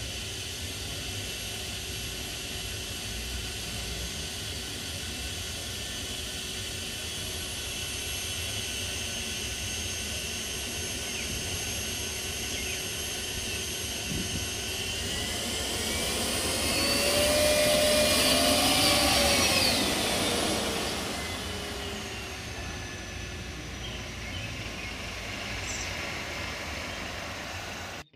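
Chrysler Turbine Car's gas turbine running with a steady high whine. It grows louder as the car drives past about two-thirds of the way in, its pitch sliding down as it goes by.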